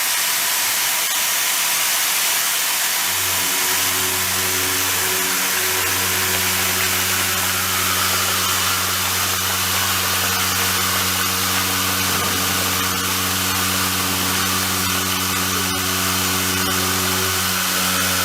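CNC vertical machining centre taking a heavy milling cut: a steady low hum with several overtones comes in about three seconds in and ends near the end, over a constant hiss.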